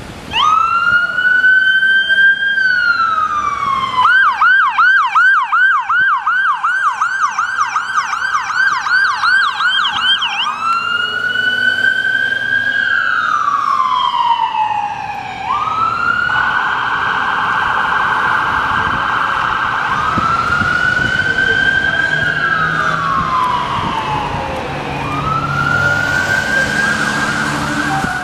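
Electronic siren of a fire-rescue medic pickup truck responding. It runs slow rising-and-falling wail sweeps, switches about four seconds in to a fast yelp for several seconds, then returns to the wail and cuts off suddenly at the end.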